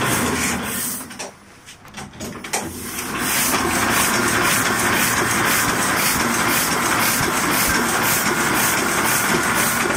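Heidelberg GTO 46 offset printing press running, a steady mechanical noise of its rollers and drive with a hiss over it. The sound drops away sharply for about two seconds a second in, then comes back at the same steady level.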